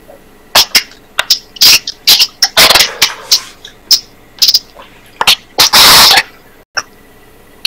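A man coughing and forcing out breath in a rapid, irregular run of short, sharp bursts close to the microphone, loud enough to clip.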